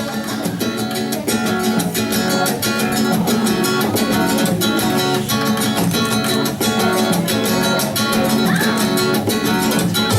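An instrumental passage of a song led by strummed acoustic guitar in a fast, even rhythm, with little deep bass.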